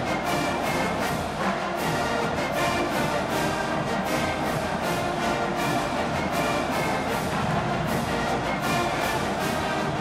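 Marching band playing, with brass carrying the tune over a steady beat.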